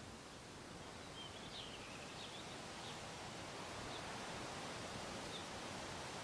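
Outdoor waterhole ambience: a steady hiss of background noise, with faint high bird chirps scattered through the first couple of seconds and a few more later.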